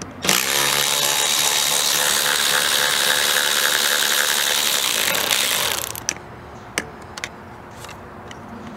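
Electric ratchet with a Torx socket running for about five seconds, backing a bolt out of a convertible top frame, then stopping, followed by a few small clicks.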